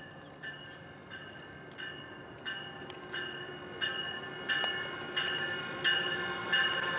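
Train bell ringing at an even pace, about three strikes every two seconds, growing steadily louder as the train approaches.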